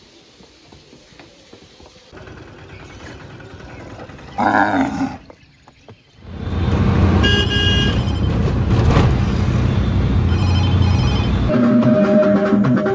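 Street traffic running with vehicle horns honking several times, over a steady low rumble; near the end it gives way to music.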